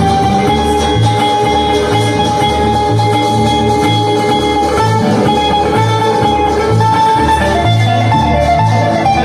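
Acoustic guitars and an upright bass playing an instrumental break, the bass plucking a steady run of low notes about two a second under the guitars.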